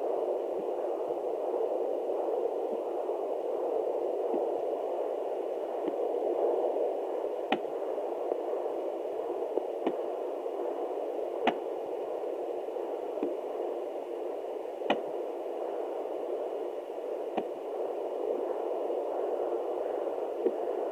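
Fetal hiccups at 29 weeks heard through a fetal Doppler: sharp, brief clicks every two to three seconds over the Doppler's steady static hiss.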